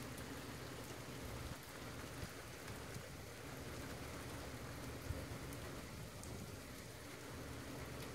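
Steady rain falling, with a few faint drops ticking, over a low steady hum.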